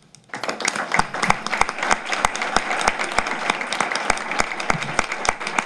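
Audience applauding, starting a moment in and going on steadily, with a few individual louder claps standing out.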